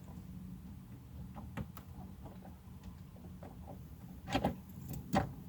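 Light clicking and rattling of a GM ignition lock cylinder and key being worked into the steering column housing, with two sharper clicks near the end, over a steady low hum.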